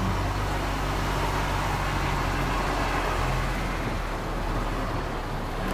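Lorry's diesel engine running steadily at low revs, heard from inside the cab, as the truck creeps slowly forward.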